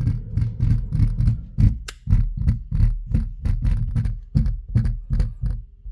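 A hand tapping repeatedly on a plastic part in the front of a Tesla Model 3/Y, a steady run of dull knocks about three to four a second. The tapping checks the part for the loose fit behind the car's front rattling and clicking noise.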